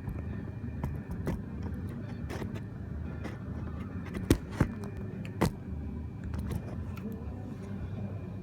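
Mini Cooper S driving, with a steady low rumble and irregular sharp knocks every second or so, the loudest about four seconds in. The knocking comes from the back right of the car, which has Megan Racing coilovers fitted that the owner found tight, so its cause is unknown.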